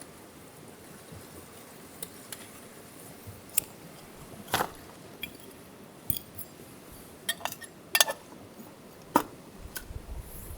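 A series of light clinks and knocks from hard objects being handled, about a dozen spread unevenly, a few of them ringing briefly; the loudest come near the middle and about eight seconds in.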